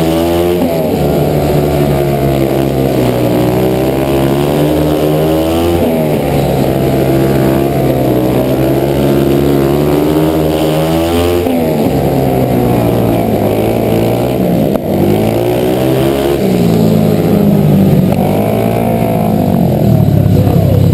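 Dirt-track racing motorcycle engine heard close up from the rider's helmet camera, its revs climbing on the straights and dropping back going into the turns every few seconds.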